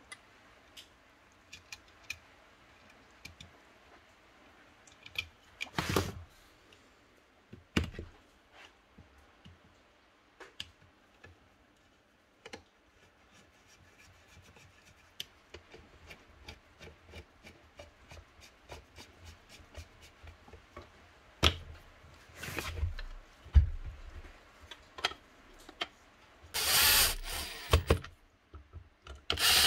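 Hand-screwdriver work and parts handling on the housing of an old Makita beam planer: scattered small clicks and ticks as screws are turned, a few louder knocks of parts set down, and a longer scraping rub near the end.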